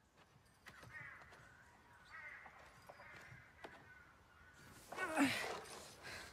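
Quiet outdoor ambience with faint bird calls, then about five seconds in a teenage boy's loud strained groan, falling in pitch, as he heaves a heavy log.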